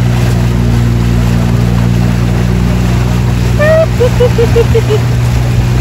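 A motorboat's engine runs steadily with a low droning hum, with wind and water noise over it. About three and a half seconds in, a brief run of short high-pitched notes sounds over the engine.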